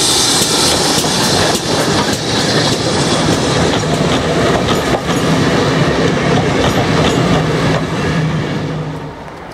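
GWR 57xx class pannier tank steam locomotive passing close by with its coaches: a loud rush and hiss as the engine goes past, then the carriage wheels clicking over the rail joints. The sound falls away near the end as the train draws off.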